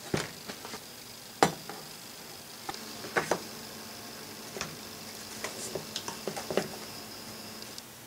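Scattered light clicks and knocks of brass bus bars and plastic circuit breakers being set down and shifted on a board, the sharpest about a second and a half in and a pair about three seconds in. A faint steady high-pitched whine runs underneath and stops just before the end.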